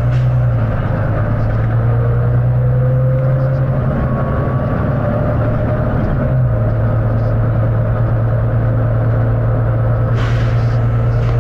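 Volvo B9TL double-decker bus's six-cylinder diesel engine running with a steady low drone and a faint whine that slowly rises in pitch; a short air hiss near the end.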